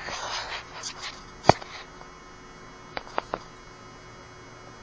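Scattered handling noises: a short rustle at the start, a sharp knock about a second and a half in, then three small clicks close together around three seconds, over a faint steady hum.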